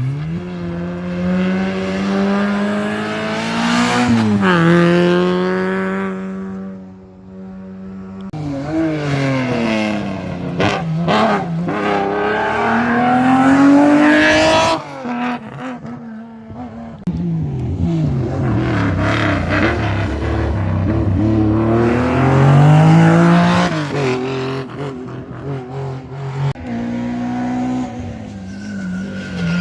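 Rally cars at full attack on a special stage, one after another. Each engine revs up and drops repeatedly through gear changes and corners, loud and close.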